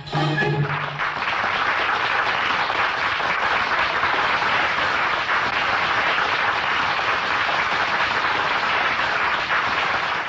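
The band's last string note ends less than a second in, and a large audience breaks into steady applause, which cuts off suddenly at the end.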